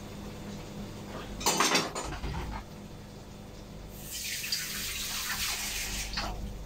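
A metal colander clattering against the sink and pans about a second and a half in, then a kitchen tap running for about two seconds.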